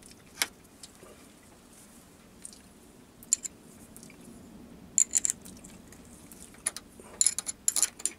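Steel open-ended spanner clinking against nuts and lathe fittings while a nut is turned: scattered sharp metallic clicks, busiest in the second half.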